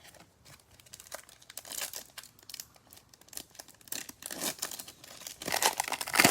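A foil trading-card pack wrapper being torn open and crinkled by hand. The irregular crackling grows loudest near the end.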